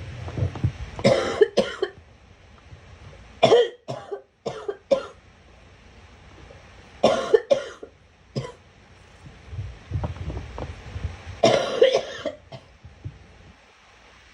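A girl coughing in four bouts a few seconds apart, each bout of two to four sharp coughs.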